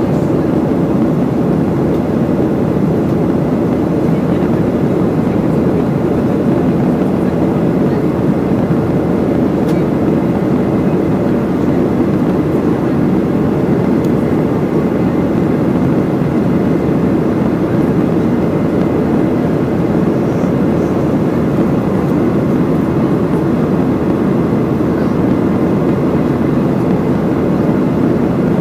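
Boeing 737-700 cabin noise heard from a seat by the wing: the CFM56-7B jet engines and rushing air making a steady, even noise during the climb-out.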